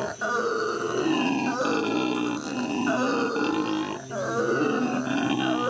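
Black howler monkeys howling: a loud, continuous run of deep roars that rise and fall in pitch, broken only briefly just after the start and again about four seconds in.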